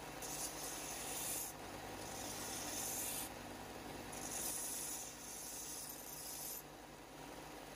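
Plasma-cut steel wrench being ground against a belt sander: a high, hissy grinding in four passes of one to two seconds each, over the sander's steady hum.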